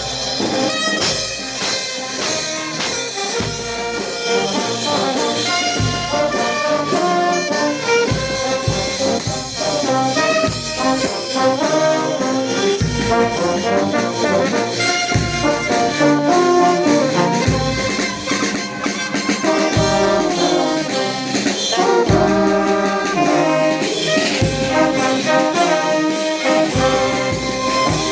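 A brass band with trumpets plays a pasacalle, a lively street-procession tune, with held and moving brass lines over a steady percussion beat.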